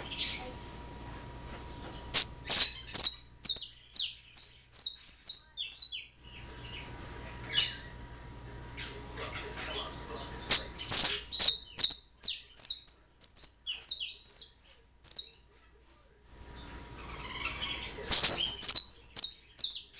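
Domestic canary singing: three long phrases of loud, high, quickly repeated notes, starting about two seconds in, about ten seconds in and near the end, with softer twittering between them.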